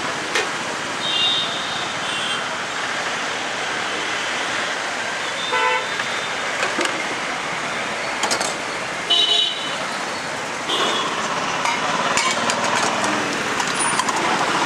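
Steady street traffic with several short vehicle horn toots scattered through. Steel bowls and a ladle clink against each other and the steel counter, more often near the end.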